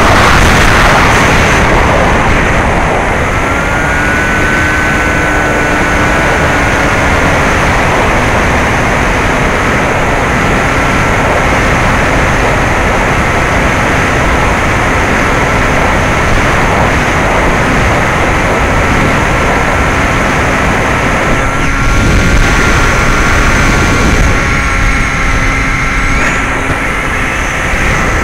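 Bixler 2 RC plane's NTM 1400kv brushless motor and 9x6 propeller running in flight, a steady high whine under heavy wind rush on the onboard camera's microphone. The whine rises a few seconds in with the throttle, then eases slightly and holds.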